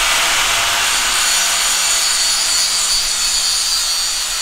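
Power tool running steadily under load, a loud hiss with a faint high whine through it, as in cutting.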